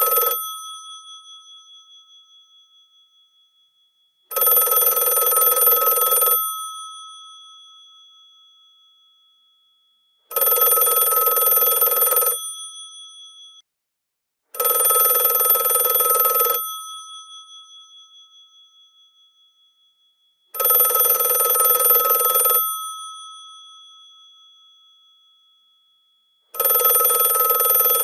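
Electromechanical bells of a GPO 746 rotary telephone ringing in bursts of about two seconds, five bursts starting roughly every four to six seconds. After each burst the bells ring on and die away over a few seconds.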